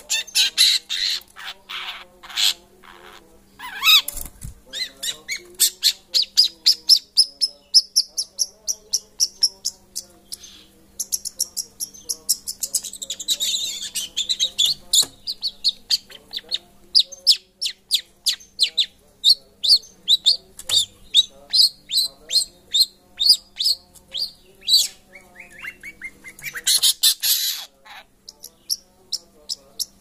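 Juvenile long-tailed shrike (cendet), still in its spotted 'trotol' stage, calling from its cage: runs of short, sharp, high chirps, several a second, with a harsher chattering burst near the end.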